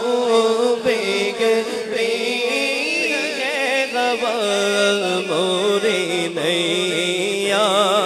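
A man singing a naat, the Islamic devotional poem, solo into a microphone. His voice holds long, ornamented notes with a wavering, melismatic melody.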